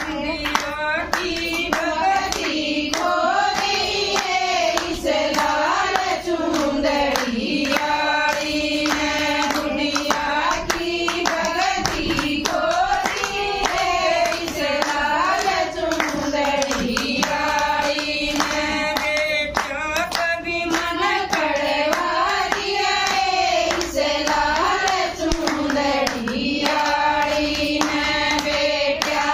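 Women singing a devotional bhajan in a steady melody, with hand-clapping keeping time all the way through.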